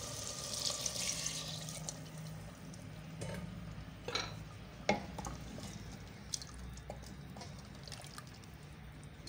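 A glass of water poured into a clay pot of curry, splashing into the gravy, followed by a few light knocks as a wooden spoon stirs it in the pot.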